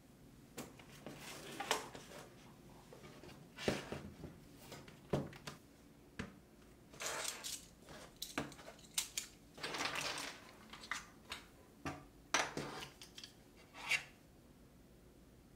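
Cables, chargers and small plastic gadgets being handled on a wooden desk: irregular clicks, knocks and rustles of things picked up and set down, with a longer rustle of cable about ten seconds in. The handling stops shortly before the end.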